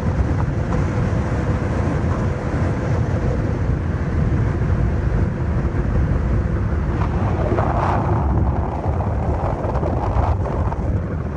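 Strong wind buffeting the microphone over heavy surf breaking on rocks, a steady rumbling noise with one louder surge about eight seconds in.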